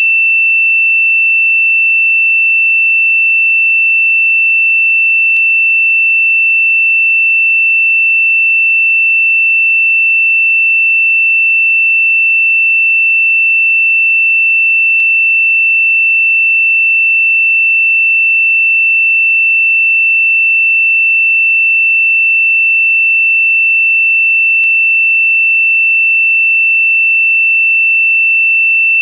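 A single electronic sine tone, high-pitched and held perfectly steady with no pulsing, as used in meditation frequency tracks. Three very faint ticks come about ten seconds apart.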